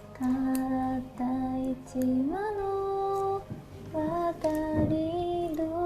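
A woman's voice singing a slow melody in long held notes with short breaks between them, rising in pitch about two seconds in.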